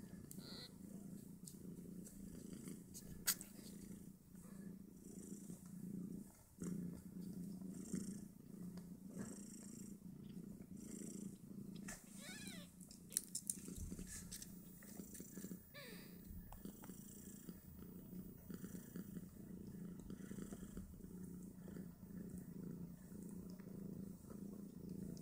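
Mother cat purring steadily while her newborn kittens nurse. A couple of sharp clicks and a brief high wavering cry about halfway through.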